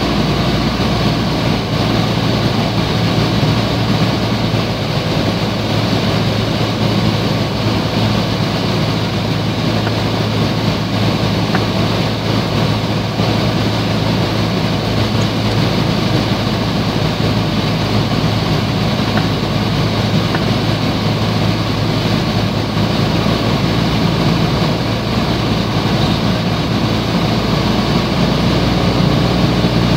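Piper PA-28's piston engine and propeller droning steadily, heard from inside the cabin. A strong low hum sits under a rushing noise.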